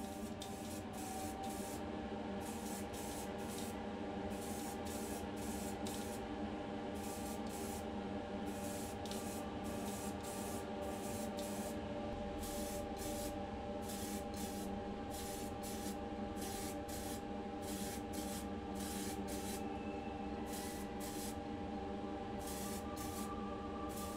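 Paint spraying in many short hissing bursts, about two a second, over the steady hum of a spray booth fan: primer and then the colour coat going onto a small die-cast car body and parts.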